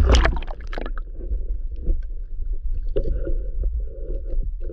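Water splashing at the sea surface as a freediver in long fins ducks under, then the muffled rumble of moving water heard underwater, with scattered faint clicks.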